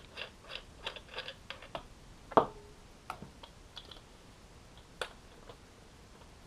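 Quick run of small clicks and ticks from an airsoft rifle's metal flash hider and barrel being handled and unscrewed, then a louder metallic clack with a brief ring about two and a half seconds in, and a few scattered clicks after.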